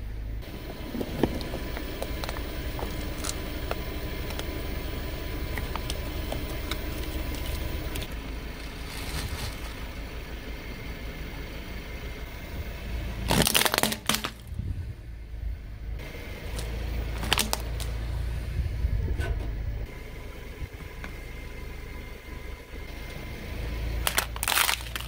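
Car tyre rolling slowly over concrete block paving and crushing small plastic toys: crackling and snapping, with a loud crack just past halfway, another a few seconds later, and one near the end. The car's low rumble runs underneath at times.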